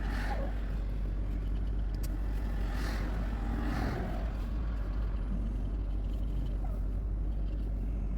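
A vehicle driving: a steady low rumble of engine and road noise, with two brief swells of noise about three and four seconds in.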